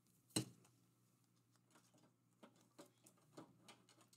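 Faint clicks and light taps of trading cards and hard plastic card holders being handled and set in a clear acrylic stand, with one sharp click about half a second in.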